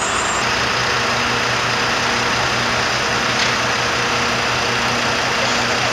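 Heavy fire-engine engines running steadily at idle: a low hum with a steady tone, over a broad rushing noise.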